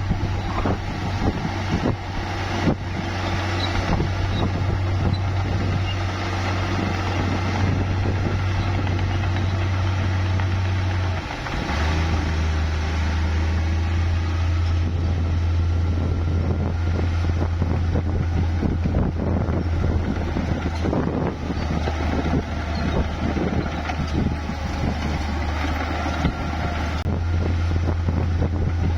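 Bulldozer's diesel engine running steadily at work, a deep hum with dense rattling over it. About eleven seconds in the sound briefly dips, then the engine note settles lower and heavier.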